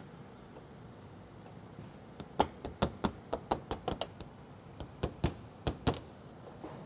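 A hand knocking and pressing on the side of a Toyota Corolla's plastic front bumper cover to snap it onto its side clips. About a dozen sharp knocks in quick, uneven runs, starting about two seconds in.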